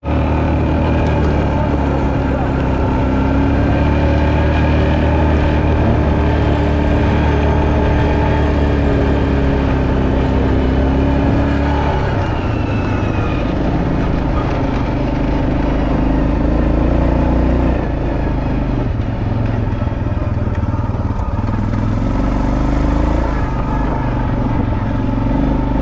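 Quad bike engine running while riding, its note rising and falling with the throttle; it drops about twelve seconds in and climbs again near the end.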